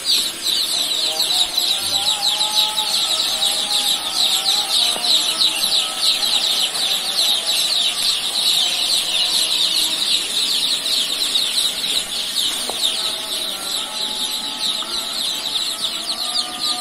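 A large flock of young joper chicks peeping together: a dense, continuous chorus of high, short, falling cheeps.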